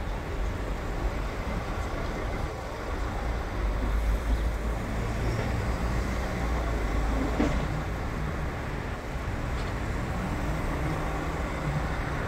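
Roadside traffic noise: vehicle engines running at an intersection, with a steady low rumble and a faint engine hum that comes and goes.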